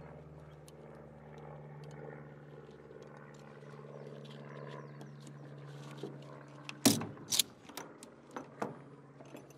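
A steady low machine hum that cuts off about seven seconds in, followed by a run of sharp metallic clacks as a ratchet tie-down strap buckle is worked open and released.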